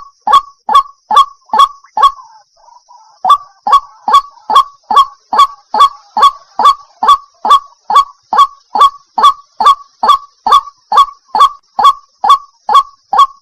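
White-breasted waterhen calling: a loud, regular series of short, repeated notes, about two and a half a second, with a break of about a second near the start before the series picks up again.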